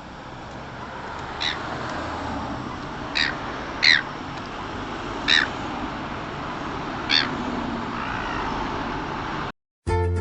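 Seagulls giving five short, harsh calls a second or two apart, over a steady low rumble that slowly grows louder; the sound cuts off near the end.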